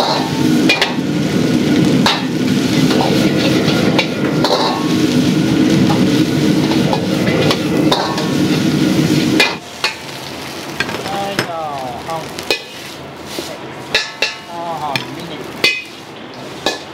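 Fried rice being stir-fried in a wok over a loud gas burner, with the metal ladle knocking against the wok every second or two. About nine and a half seconds in, the frying noise drops away, leaving separate ladle clinks and scrapes against the wok.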